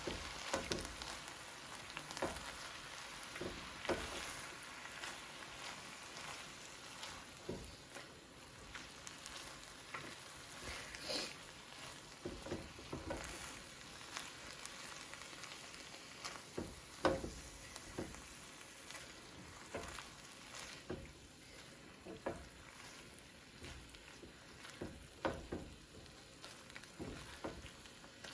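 Ground turkey and vegetables sizzling in a frying pan as they are stirred, a steady faint hiss broken by irregular scrapes and knocks of the stirring utensil against the pan.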